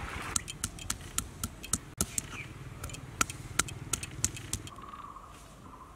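Stone pestle knocking on a stone grinding slab (shil-nora) as pieces of ginger are crushed: sharp, irregular knocks, two or three a second, that stop about four and a half seconds in. A steady high-pitched tone starts near the end.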